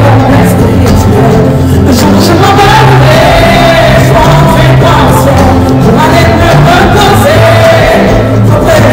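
Live pop song: a male singer singing into a microphone over band accompaniment with a steady bass line, recorded loud.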